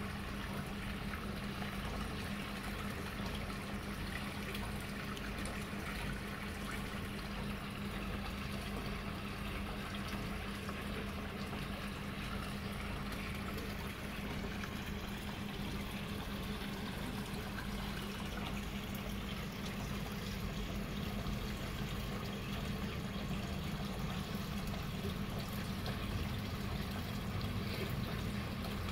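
Water running and trickling steadily, with a low steady hum underneath.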